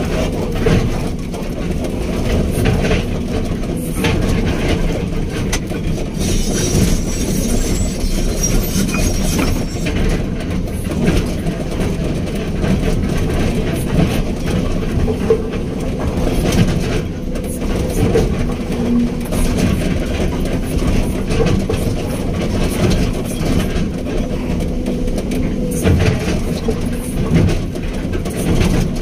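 Backhoe excavator's diesel engine running steadily and loudly while the machine works.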